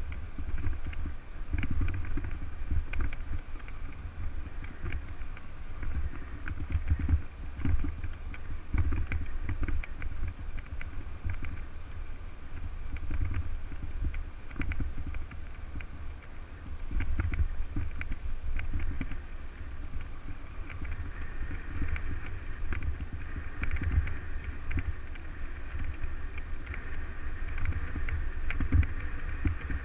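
Wind buffeting the microphone of a camera on a moving bicycle, with rumble and scattered rattles and knocks as the tyres roll over cracked road and dirt. A steady hum grows a little after about 20 seconds.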